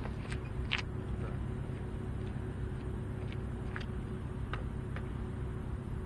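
Steady, choppy low rumble of wind buffeting an action camera's microphone, with a few faint clicks scattered through it.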